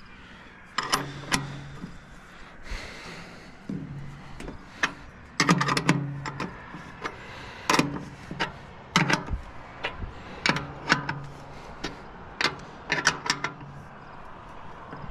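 Steel wrench clicking and clinking against bolts on the sheet-metal head housing of a grain elevator leg: irregular sharp metallic taps, some in quick bunches, several followed by a short low ring from the hollow housing.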